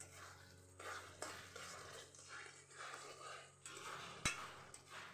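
Metal spatula stirring and scraping through a thin gravy in a metal kadai, in a series of faint strokes, with one sharp clink against the pan about four seconds in.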